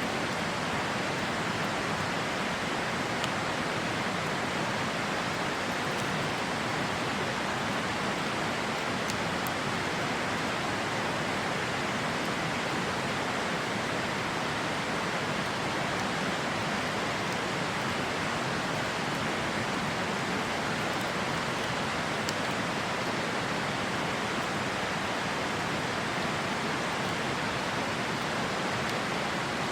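Steady rushing of a river flowing close by, with a few faint crackles from a campfire.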